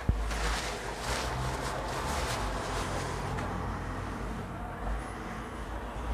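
Steady low rumble and hiss of background noise, with a few brief rustling sounds in the first two seconds or so.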